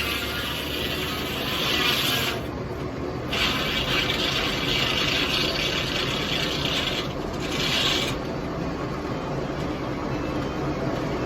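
Bell 42-inch circular sawmill blade cutting through wood, a steady rasping hiss that drops away briefly twice and eases near the end, with the Massey Harris 44 tractor that powers the mill running steadily underneath.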